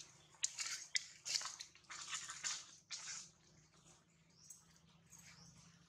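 Long-tailed macaque biting and chewing ripe mango up close: a run of wet smacking and squelching mouth noises for about two and a half seconds, then quieter.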